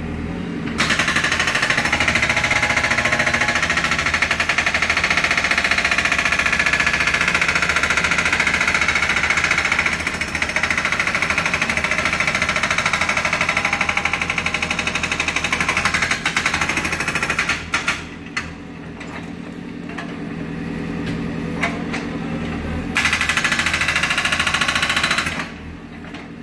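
Pavement breaker hammering rapidly and without a break for about seventeen seconds, stopping, then hammering again for a couple of seconds near the end. Under it runs the steady hum of a diesel engine idling.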